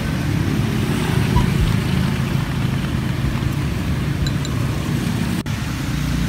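Steady low rumble of street traffic with motorbike engines.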